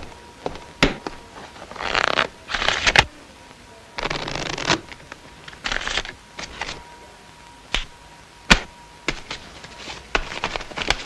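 A deck of playing cards shuffled by hand: several short riffling bursts between about two and six seconds in, with single sharp clicks before and after.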